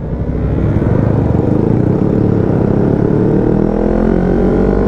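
Yamaha R25's 250 cc parallel-twin engine pulling hard under acceleration, its note climbing steadily in pitch as the bike gathers speed.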